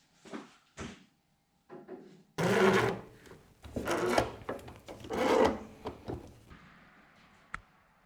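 Three rough scraping strokes across wood, each under a second and about a second apart, after a few light knocks.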